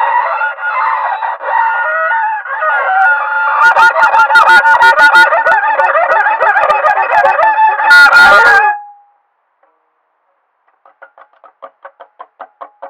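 A loud, shrill din of many wavering pitched tones, joined by sharp clicks from about three and a half seconds in, cutting off suddenly just before nine seconds. After a short silence, a plucked string instrument starts repeating notes at about three a second, growing louder.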